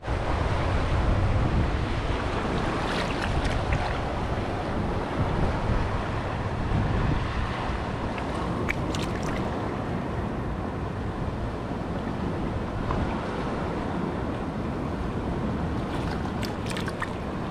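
Wind buffeting the microphone over the steady wash of waves on a rocky shore, with a few faint clicks scattered through.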